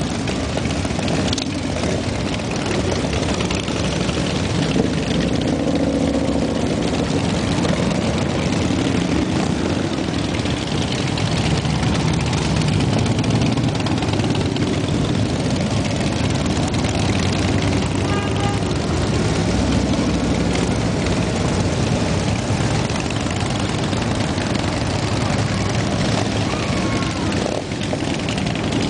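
A long procession of motorcycles, mostly big touring bikes, rumbling steadily past one after another. A semi-truck passes among them partway through.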